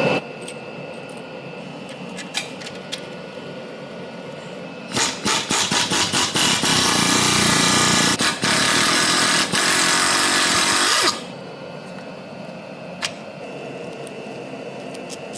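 Power tool working the car's worn-out bearing loose. About five seconds in it is pulsed in short bursts, then held running for about four seconds before it stops abruptly, with a few light clicks before and after.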